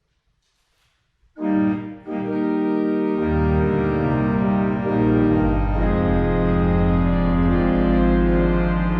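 Church organ playing after a second or so of silence, entering about a second and a half in with full, sustained chords. Deep pedal bass notes join about halfway through.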